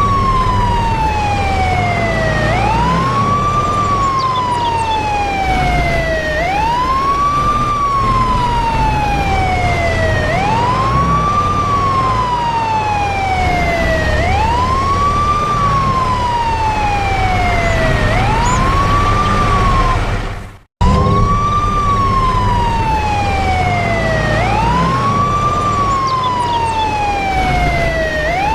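Truck 'telolet basuri' horn wailing like a siren: each cycle rises quickly and then slides slowly down, repeating about every four seconds over a low rumble. It cuts out for a moment about two-thirds of the way through, then starts the same wail over.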